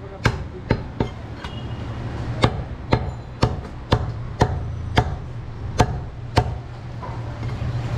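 Cleaver chopping through a goat's ribs on a wooden stump block: about ten sharp chops, roughly two a second, with a short pause about a second in, and the chopping stops near the end.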